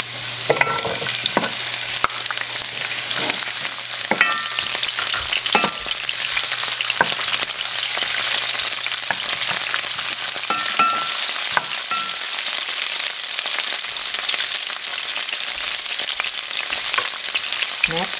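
Sliced white onions sizzling and frying in hot oil with garlic in a non-stick pan, stirred with a wooden spoon that knocks and scrapes against the pan.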